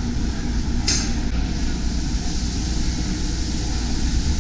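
Steady low drone of a ship's galley: ventilation hoods and kitchen machinery running, with a brief high-pitched hiss about a second in.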